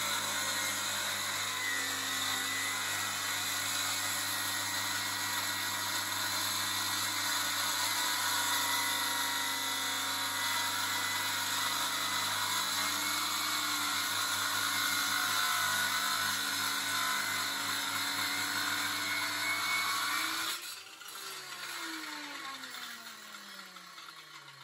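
Corded circular saw cutting lengthwise through a wooden kitchen worktop, running steadily under load for about twenty seconds. The trigger is then released and the motor winds down with a falling whine.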